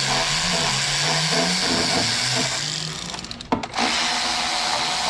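Cordless power tool running, spinning off the 10 mm nuts that hold the engine cover: one long run with a slowly rising hum, a short break with a sharp click about three and a half seconds in, then running again.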